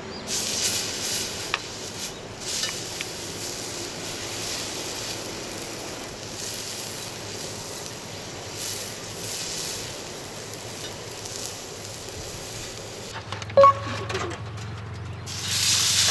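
A thick block of beef steak sizzling on a hot iron griddle plate, the sizzle swelling and easing every second or two as it is turned with tongs. A single sharp metallic clink about thirteen and a half seconds in, and the sizzle grows louder just before the end.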